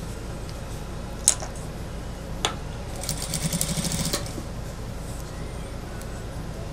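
Industrial sewing machine stitching a seam through a mink coat's lining and fur edge, running steadily with a louder spell of fast stitching about three seconds in. Two sharp clicks come in the first half.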